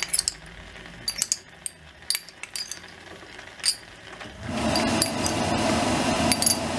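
A metal spoon clinking sharply against a ceramic bowl and the rim of a stainless pot as marinated shrimp are spooned into simmering rice porridge. About four seconds in, a louder steady rushing noise begins, with a few more clinks on top.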